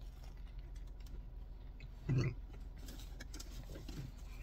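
A person biting into and chewing a soft buttered biscuit close to the microphone: faint mouth clicks and chewing, with a short low hum from the eater about two seconds in.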